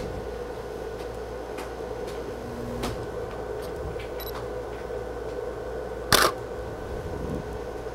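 A camera shutter fires once with a short, sharp click about six seconds in, over a steady background hum; a few fainter clicks come earlier.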